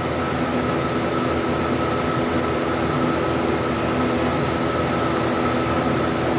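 TIG welding arc on an aluminium Harley-Davidson Twin Cam cylinder head: a steady buzzing hiss over a fixed hum.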